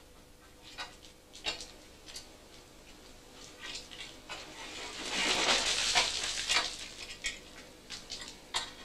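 Scaling bar knocking and prying at a rock face, with scattered sharp knocks as loose rock is broken off. About halfway through, a longer rush of crumbling stone and grit rattles down. This is scaling, clearing loose rock from the roof and walls so it cannot fall later.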